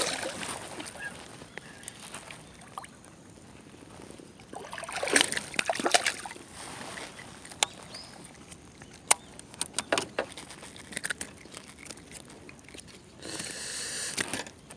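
Water sloshing and splashing close by in uneven bursts, with a few sharp clicks in between and a stretch of rushing water noise near the end.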